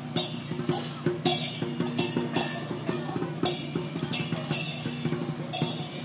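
Chinese procession percussion band playing: drums beating with cymbal crashes roughly twice a second, over a steady low ringing.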